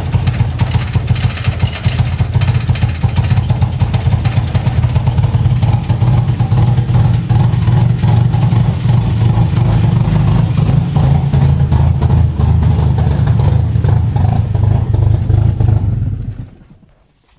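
1986 Mazda RX-7 FC's non-turbo 13B two-rotor rotary engine idling rough and chugging unevenly while running really rich. The sound cuts off about a second before the end.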